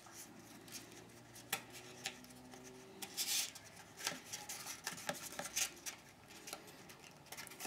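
Light handling sounds as a toy biplane's foam wings and plastic struts are fitted together: scattered small clicks and taps with rubbing, and a scratchier stretch about three seconds in.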